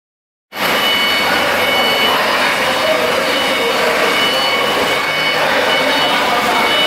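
900 kVA Cummins diesel generator set running steadily: a loud, dense engine noise with faint steady high whines over it. It starts abruptly about half a second in.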